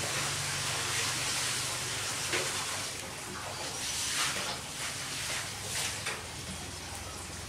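Steady rushing hiss from a wood cooking fire burning under lidded pots, with wind blowing across the microphone and a few brief louder bursts.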